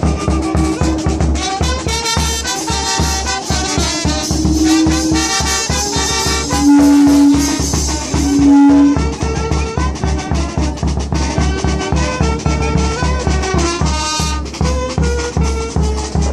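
Brass band music: horns playing a melody over a steady drum beat, with two long, loud held notes about seven and eight and a half seconds in.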